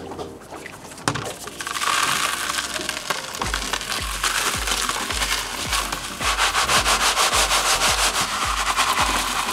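Small beach rocks, used as cat litter, pour and rattle from a colander into a plastic litter box, a continuous grainy rush starting about a second and a half in. Background music with a steady low beat comes in about three seconds in.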